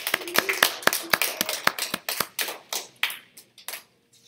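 A small audience clapping, the separate claps dense at first, then thinning out and stopping shortly before the end.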